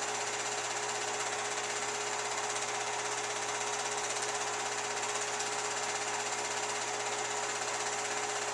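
Film projector running steadily: an even mechanical running noise with a constant hum under it, unchanged in level.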